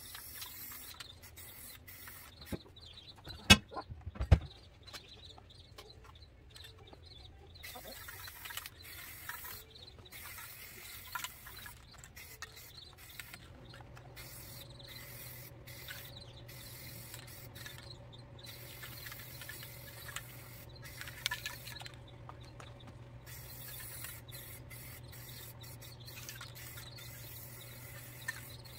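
Aerosol spray paint (Rust-Oleum Ultra Cover 2X) hissing from the can in short bursts as it is sprayed onto wicker furniture. Two sharp knocks about three and a half and four seconds in are the loudest sounds, and a steady low hum starts about halfway through.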